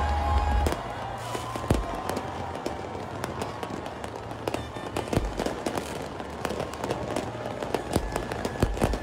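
Fireworks going off in a rapid, irregular string of bangs and pops. Music with heavy bass plays under them and cuts off under a second in.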